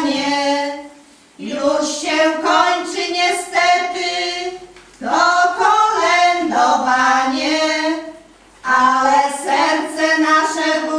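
A female voice singing a slow hymn about the Luminous Mysteries of the rosary, with long held notes in three phrases and short breath pauses between them.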